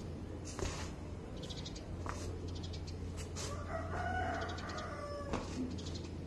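A rooster crows once, one drawn-out call of about a second and a half starting a little past the middle. A few sharp slaps come before and after it.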